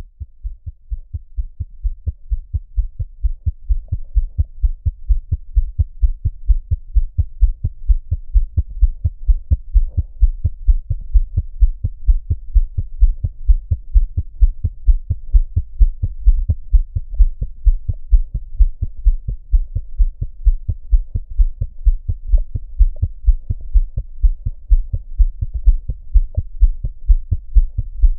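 Fetal heartbeat picked up by a Doppler monitor and played back through a small speaker: a rapid, even pulse of low beats, a little over two a second, growing louder over the first few seconds.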